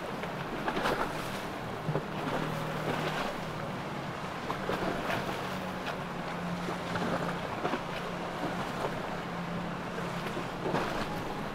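Boat motors droning steadily, with water splashing and wind buffeting the microphone.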